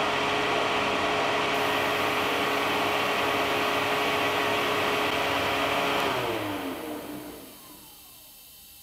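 Leaf blower running steadily at its lowest setting, forcing air through a homemade butane jet engine that does not light because the airflow blows out the flame. About six seconds in, the blower is switched off and winds down, its whine falling in pitch and fading.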